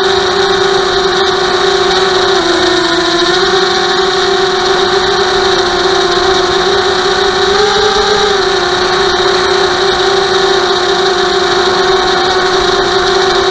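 Brushless motors and propellers of a Vortex 250 FPV racing quadcopter whining steadily in flight, heard through its onboard camera. The pitch dips briefly about two and a half seconds in and rises slightly for a moment around eight seconds, over a steady rush of air.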